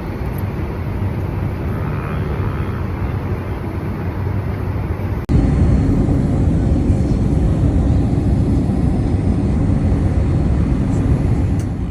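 Boeing 787 Dreamliner cabin noise in flight: a steady, even low rumble of engine and airflow. About five seconds in it jumps suddenly to a louder level and carries on steady.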